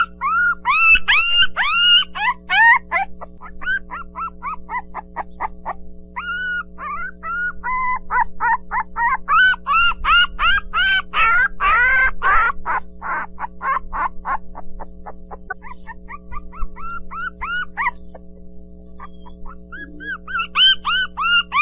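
A group of puppies yelping and whining: many short cries that rise and fall in pitch, coming in quick overlapping runs. They thin out for a few seconds past the middle, then pick up again near the end, over a steady low drone.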